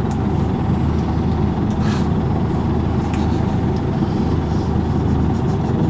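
Volvo B10BLE single-deck bus heard from inside the cabin, its diesel engine giving a steady low drone on the move. A brief hiss comes about two seconds in.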